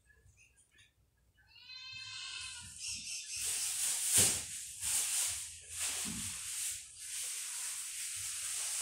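A short animal call with a clear pitch, about a second and a half in. It is followed by a steady hiss that lasts to the end and is the loudest sound.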